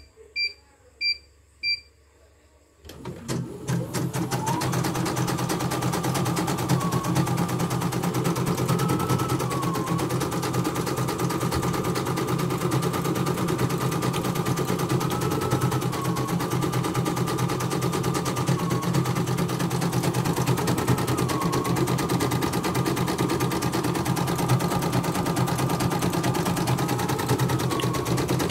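Four short beeps from the control-panel buttons of a CNY portable computerized embroidery machine. About three seconds in, the machine starts stitching and runs steadily to the end: rapid needle clatter with a motor whine that dips briefly every few seconds as the hoop moves. It is running smoothly on a test design.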